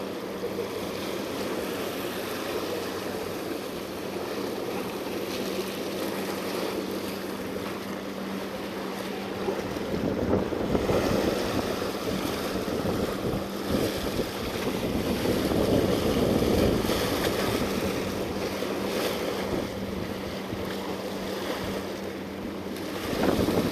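Waves washing against shoreline rocks, swelling and easing every few seconds, with wind on the microphone. A faint steady low hum lies underneath.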